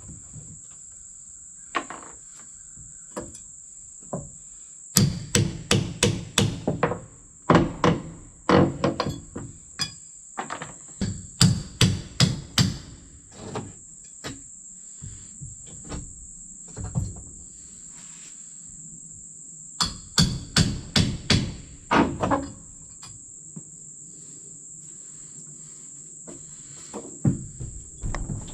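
Hammer striking wood in several quick runs of blows, with pauses between. A steady high chirring of crickets goes on under it throughout.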